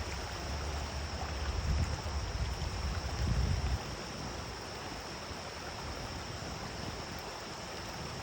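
Waterfall water rushing steadily, with a low rumble underneath for the first half that stops suddenly about four seconds in.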